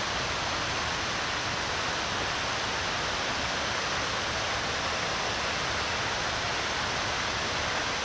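Steady rushing of a waterfall's falling water, even and unbroken.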